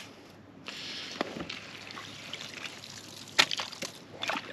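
Water trickling and sloshing in an ice-fishing hole as a Garmin LiveScope sonar transducer pole is handled, with a few sharp knocks from the metal pole and its mount in the second half.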